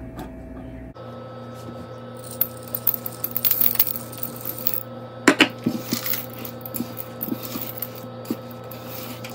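Semi-sweet chocolate chips poured into a stainless steel mixing bowl, pattering in as many small clicks, with one sharp knock a little over five seconds in. A silicone spatula then scrapes and folds the chips into thick cookie dough.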